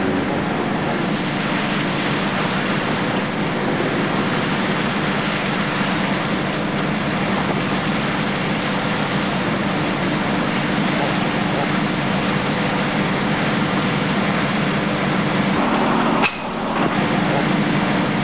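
Fishing trawler's engine and deck machinery running, a steady low hum under a wash of noise, broken off briefly about sixteen seconds in.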